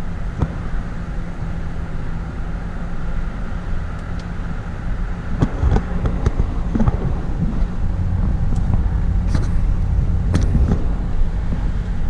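A car driving: a steady low engine and road rumble, with a few scattered clicks and knocks.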